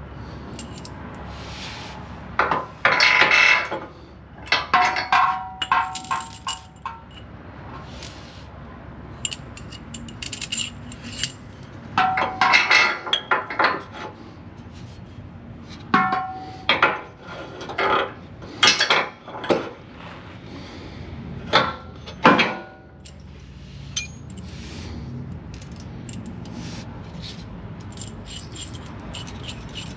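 Steel bolt, wire feeder and bracket plate clinking, rattling and scraping against a truck frame rail while the bolt is fished through the frame to mount a rock slider. The clatter comes in several short bursts with brief metallic ringing.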